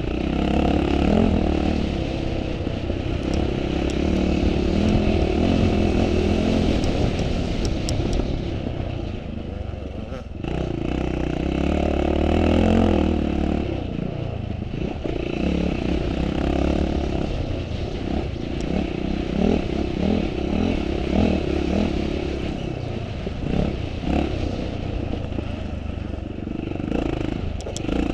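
Vintage motocross motorcycle engine running under racing throttle, rising and falling, with clattering and scraping. The sound drops off briefly about ten seconds in, then picks up again.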